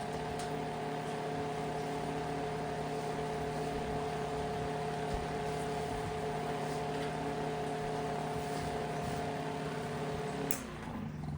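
Vintage Corando 8-inch electric desk fan running steadily with a motor hum and blade whoosh, then switched off about ten and a half seconds in and winding down.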